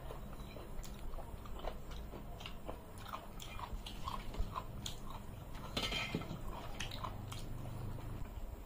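Close-up mouth sounds of eating: wet chewing, smacking and small irregular clicks as rice and curry are eaten by hand, with a short noisier patch about six seconds in.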